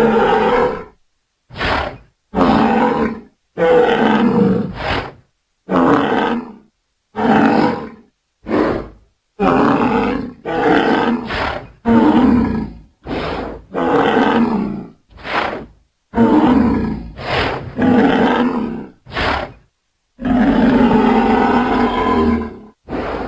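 Designed dinosaur sound effects for large horned dinosaurs (ceratopsians): a string of short roars and bellows, each about a second long, separated by brief silences. Near the end comes one longer roar of about three seconds.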